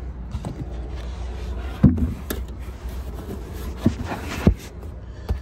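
Several knocks and thumps of handling in a Tesla Model Y's under-floor cargo well, as groceries are set in and the cargo floor cover is laid back over it. The loudest knock comes about two seconds in, over a steady low rumble.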